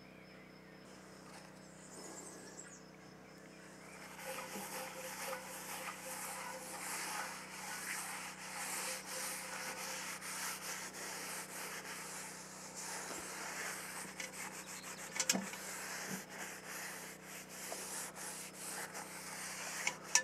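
Paper towel rubbing over the inside of a cast-iron Dutch oven, a rough, uneven scrubbing that starts about four seconds in. It is the pot's interior being wiped with oil for seasoning.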